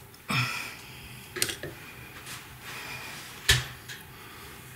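A few short knocks and clatters of dishes being handled: a clatter about a third of a second in, a light click near the middle, and a sharper knock about three and a half seconds in.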